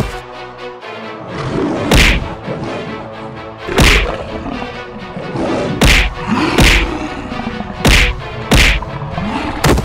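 Cartoon fight sound effects: about eight hard whacking hits, one every second or two, over background music.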